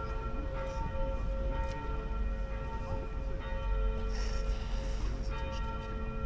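Church bells ringing, several tones pulsing as the bells keep striking, over a low rumble.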